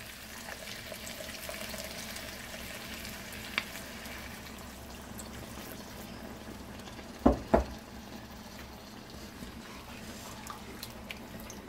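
Water poured into a pan of hassar curry that is sizzling steadily on the stove. Two quick knocks come a little past the middle.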